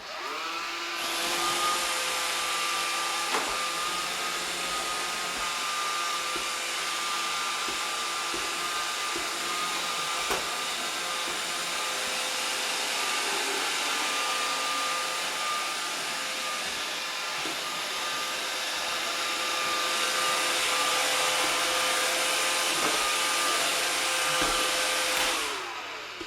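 iRobot Roomba 560 robot vacuum's motors spinning up, then running with a steady whine and a few light knocks, and winding down near the end.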